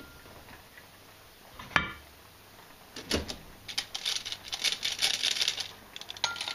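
Deep fryer's wire basket knocking twice against the fryer, then a couple of seconds of rapid fine crackling as the basket of freshly fried parsnip chips is lifted out of the hot oil to drain.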